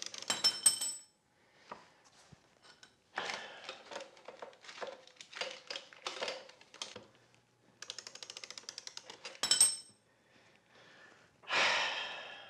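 Hand tools worked on a motorcycle's rear suspension bolts: a steel wrench clinks and rings as it is set down on the concrete floor, then come scraping and handling noises, a fast run of ratchet clicks about eight seconds in, and another ringing metal clink just after.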